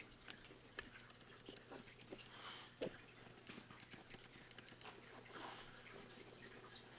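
Near silence: room tone with a low steady hum and faint, scattered light taps and clicks, one slightly louder knock about three seconds in.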